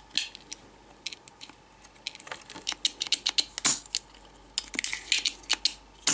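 Hand-held spring-loaded desoldering pump being worked: a run of sharp plastic clicks and taps as its plunger is pushed down to eject the solder it has sucked up, sparse at first and coming quickly from about two seconds in.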